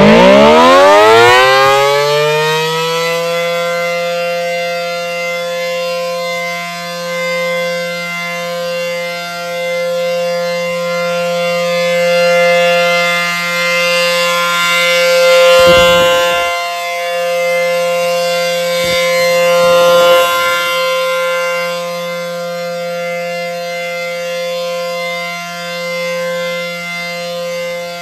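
ACA P-10 (Penetrator 10) dual-tone outdoor warning siren winding up, its pitch rising over the first few seconds, then holding a steady dual-tone wail that swells and fades in loudness every few seconds as it rotates.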